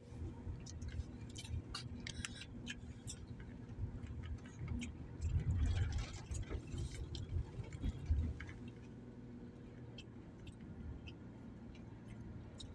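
Road and engine noise inside a moving car's cabin: a steady low rumble with scattered light clicks and rattles. The rumble grows louder about five seconds in, then settles to a quieter, steadier hum after about eight seconds.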